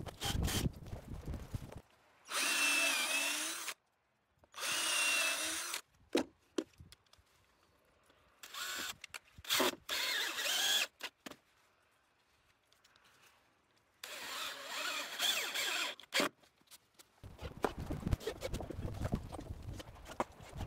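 Cordless drill driving screws into wooden deck boards in about five short runs of one to two seconds each, a steady motor whine with gaps between. Loud clattering knocks at the start, and knocking again near the end.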